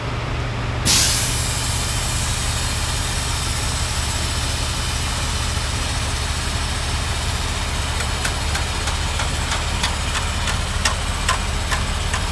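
Mercedes-Benz V6 diesel engine idling steadily. A loud burst of hissing comes about a second in, and several sharp clicks come in the last few seconds.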